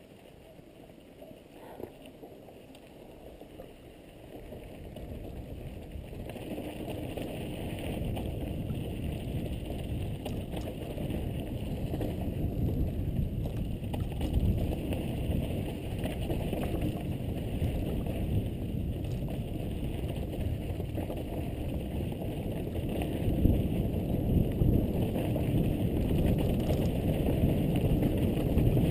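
Mountain bike tyres rolling over a dirt and rock trail, with wind rushing over the microphone, building up over the first several seconds as the bike gathers speed and then running on with occasional knocks from bumps.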